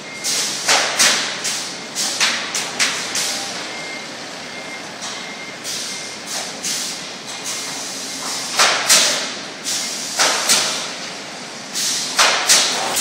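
Automatic pallet assembly nailing line at work: irregular sharp bangs and short bursts of air hiss, often two or three in quick succession, each ringing out briefly in a large hall. A faint high steady tone sounds on and off through the first half.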